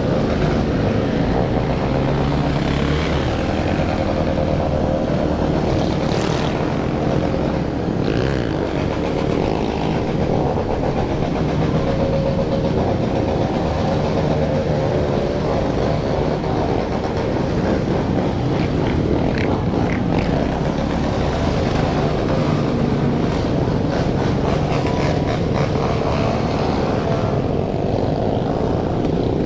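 Many motorcycle engines running together as a pack, some of them revving, making a loud unbroken din.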